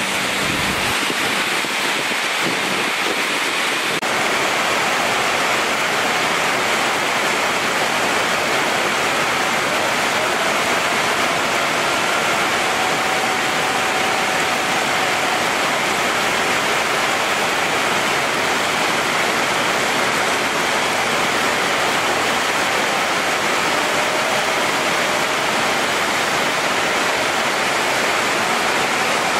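Heavy rain pouring down, a dense steady hiss over the wet airfield. A faint whine from the slowly taxiing Airbus A350-941's jet engines comes through in the middle.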